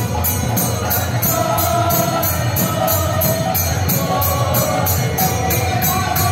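Live kirtan: a group of voices singing a devotional chant over hand cymbals (kartals) struck about three times a second and a mridanga drum.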